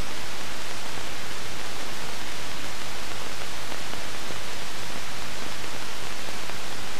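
Steady hiss with a faint low hum, unchanging in level: the noise floor of an old film soundtrack between narration.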